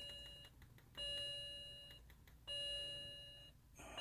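BMW 335i's electronic warning gong chiming over and over, one ding about every one and a half seconds, each fading away before the next.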